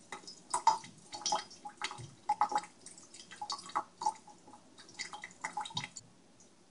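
Water splashing and dripping into a stainless steel sink as a paintbrush is rinsed under a thin tap stream and its bristles are worked between the fingers: irregular small splashes and drips that stop about six seconds in.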